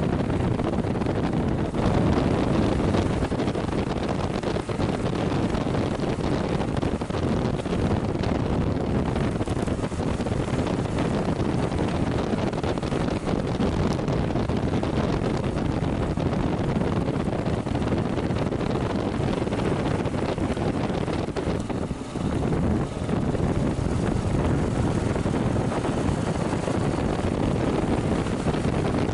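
Steady wind rush on the microphone of a bike-mounted camera on a Kawasaki KLR650 riding a dirt track, over the running of the bike's single-cylinder engine. The noise dips briefly about three-quarters of the way through.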